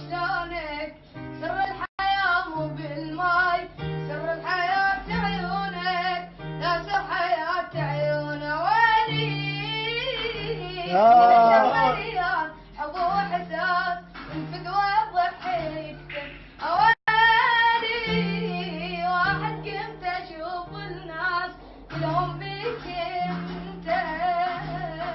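A child singing an Arabic song with ornamented, sliding vocal lines over an instrumental backing with plucked strings and a stepping bass line. The sound drops out for an instant twice.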